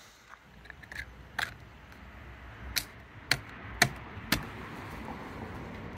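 A palm smacking a plastic end cap onto the end of an aluminium roof-rack crossbar: a couple of light knocks about a second in, then four sharp smacks about half a second apart.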